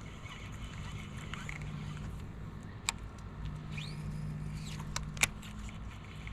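A boat's electric trolling motor humming low and steady, cutting in twice for a second or two at a time, with two sharp clicks and a short whistle that rises, holds and falls.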